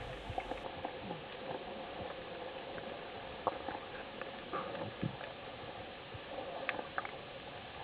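Underwater ambience heard through an underwater camera: scattered irregular clicks and crackles over a steady faint hum.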